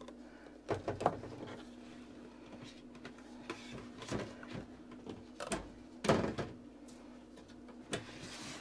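Scattered clinks and scrapes of a metal spoon in an opened can of cherry pie filling, with a louder knock about six seconds in, over a faint steady hum.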